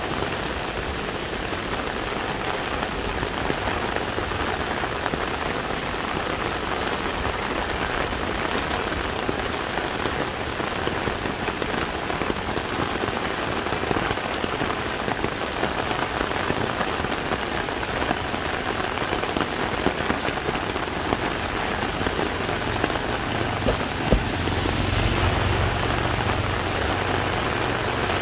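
Heavy tropical rain pouring onto a flooded street, a steady dense hiss. Near the end a low rumble rises for a few seconds, with one sharp tap in the middle of it.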